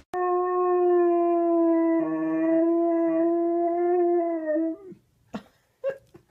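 A husky howling: one long, steady howl held for about four and a half seconds that dips in pitch as it ends. Two short sounds follow near the end.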